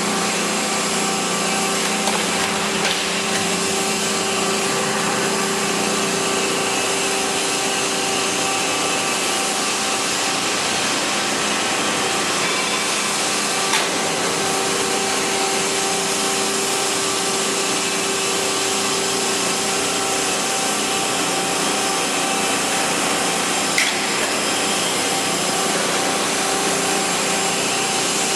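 Sheet-metal bending machine running with a steady mechanical hum and hiss, with a few faint clicks at about 2, 14 and 24 seconds.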